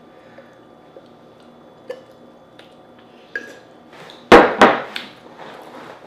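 Clatter at a table during a crab meal: a few faint clicks, then two loud, sharp knocks about a third of a second apart around four seconds in, followed by lighter clicks and handling.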